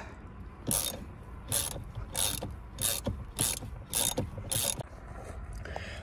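Hand ratchet wrench clicking in about seven short back-strokes, a little over half a second apart, as it unscrews the steering wheel centre bolt.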